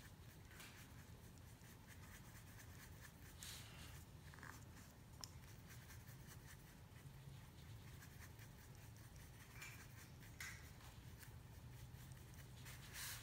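Faint swishes and scrapes of a paintbrush mixing paint on a paper palette, a few soft strokes now and then over a low steady room hum.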